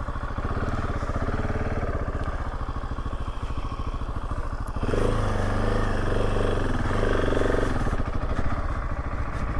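KTM 690 Enduro R's single-cylinder engine running at low revs with an even, rapid pulse, its note swelling slightly for a few seconds about halfway through.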